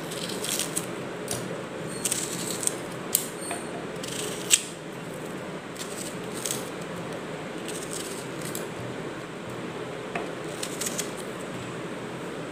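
Kitchen knife slicing a red onion held in the hand, with onion pieces dropping into a stainless-steel mixer jar: scattered short snips and light taps over a steady low hiss, the loudest tap about four and a half seconds in.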